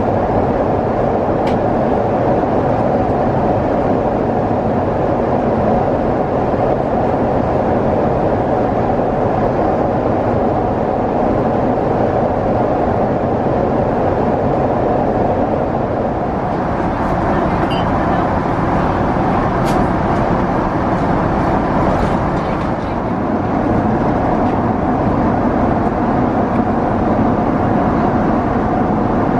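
Steady cabin noise of a Boeing 777-200 in cruise flight: engine and airflow noise with no change in pitch. A few faint clicks come about two thirds of the way through.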